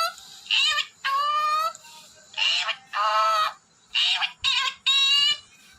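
Ringneck parrot talking in a high, squeaky voice: a string of about seven short mimicked phrases with brief pauses between them.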